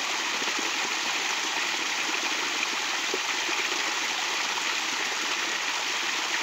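Small stream splashing over rocks into a shallow pool. It makes a steady, even rushing with little plops and gurgles mixed in.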